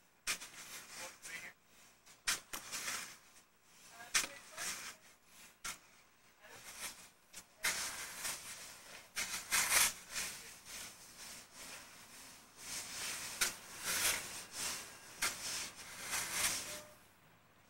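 Rakes scraping and dragging through sand in many short, irregular strokes that overlap.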